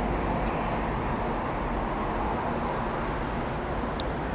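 Steady street traffic noise: an even rush of passing cars with no single event standing out.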